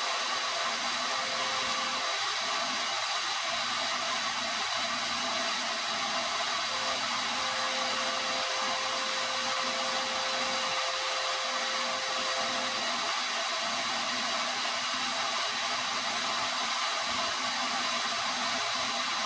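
Electric dust-cleaning machine running steadily: a continuous rush of air with a steady motor whine, as sawdust is cleaned off the saw.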